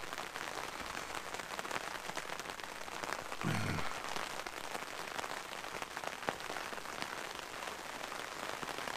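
Heavy rain falling on the fabric canopy of a fishing brolly overhead: a steady hiss full of small ticks from the drops. A brief low hum comes about three and a half seconds in.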